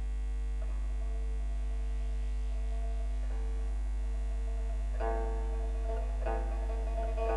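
Slow background music: sustained melodic notes ringing out, a new note every second or two, over a steady low hum.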